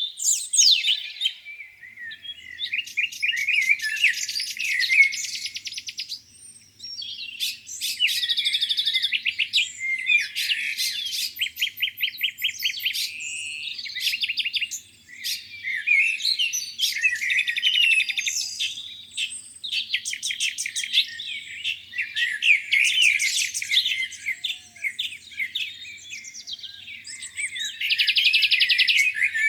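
Several songbirds singing at once in a spring dawn chorus: overlapping high chirps, whistled phrases and rapid trills, with brief lulls between bursts.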